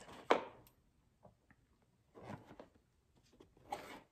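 Cardboard box being handled: a sharp knock about a third of a second in, then softer scrapes and rustles of cardboard against hands.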